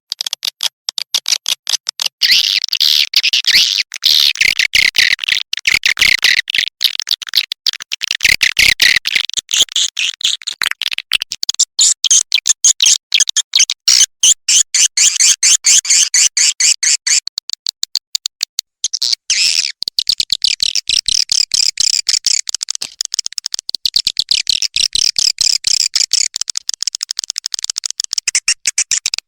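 Recorded swiftlet calls played as a lure (calling) sound for swiftlet nesting houses: a dense, rapid stream of high chirps and twitters, briefly breaking off about two-thirds of the way through before resuming.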